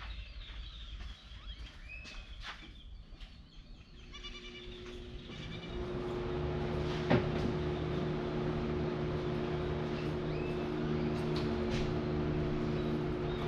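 Birds chirping, then a steady droning hum with a clear pitch rises from about four seconds in and holds, louder, through the rest.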